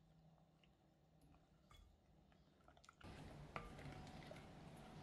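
Near silence, then from about three seconds in a faint wet squishing of a wooden spoon stirring thin flour batter in a glass bowl, with one light click partway through.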